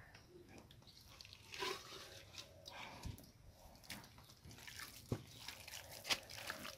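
Faint wet squishing with scattered soft clicks, from a hand squeezing and kneading boiled broken rice in a plastic basin.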